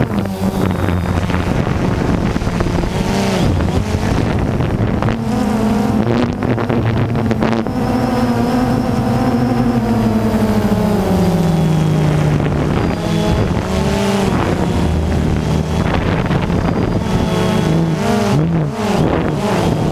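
DJI Phantom quadcopter's four electric motors and propellers buzzing in flight, the pitch rising and falling as the throttle changes while it climbs. Wind buffets the onboard microphone in repeated gusts.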